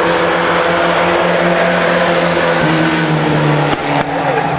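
Engines of several mini pickup race trucks running hard together at race speed in a pack, a steady loud mix of engine notes, with a brief dip in loudness a little under four seconds in.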